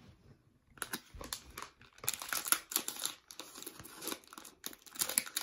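Scissors cutting into a plastic snack bag, with the wrapper crinkling and crackling in quick irregular bursts, starting about a second in.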